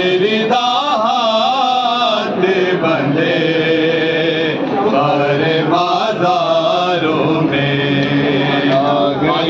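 Men's voices reciting a noha, a Shia lament, together: a slow, wavering chanted melody with long held notes.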